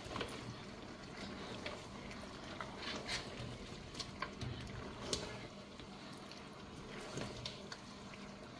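A metal spoon stirring a thick chicken, plantain and vegetable stew in a large aluminium pot: soft wet squelching of the food, with scattered clicks and scrapes where the spoon knocks against the pot.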